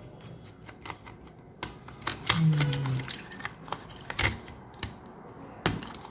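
Irregular sharp clicks and taps of a laptop being taken apart by hand, with plastic and metal parts knocking and snapping. A short hum of a man's voice comes about two seconds in.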